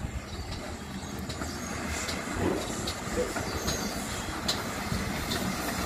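Steam locomotive hauling carriages slowly along the track: a steady low rumble with occasional sharp clicks.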